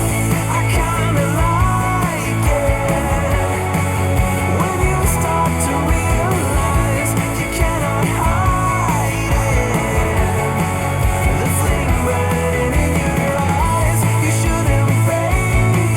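Rock music with guitar, starting right at the beginning after a brief gap, heard as played back through Bowers & Wilkins PX7 wireless headphones.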